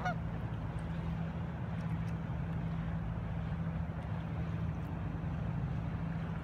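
Motorboat engine running steadily on the water, a low even hum.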